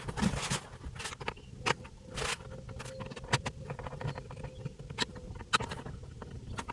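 Scattered light clicks and knocks of plastic dashboard trim being handled and fitted back into place, with a faint steady tone through the middle few seconds.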